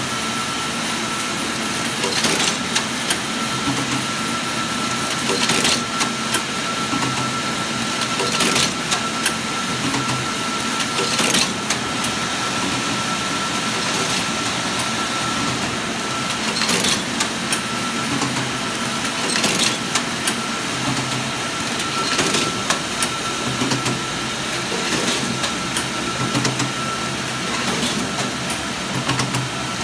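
Bourg BST20 booklet-making system, with two collator towers feeding a wire stitcher and folder, running in production: a steady mechanical whir with a thin high tone, and a sharp clack roughly every three seconds as the machine cycles through each booklet.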